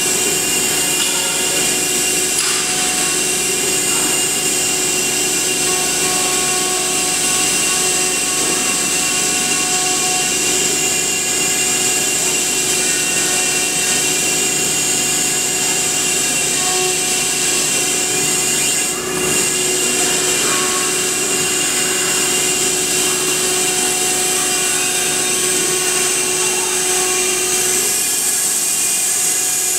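CNC router spindle running at high speed with a steady high whine over the cutting noise, dipping briefly a little over halfway through.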